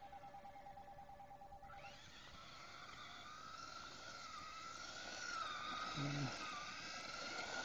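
Toy remote control car's small electric motor whining, its pitch wavering as it is driven, getting louder as it comes closer.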